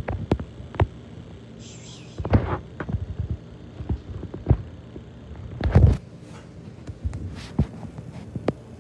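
Irregular dull thumps and knocks, the heaviest cluster just before six seconds in, over a faint steady low hum.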